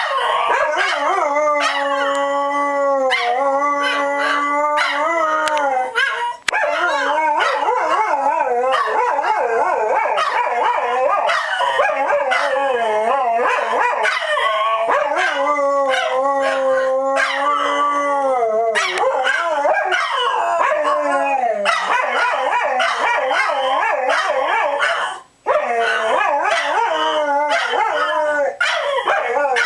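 Two dogs howling together in long, wavering, overlapping howls that rise and fall in pitch, with brief pauses about six seconds in and again near the end.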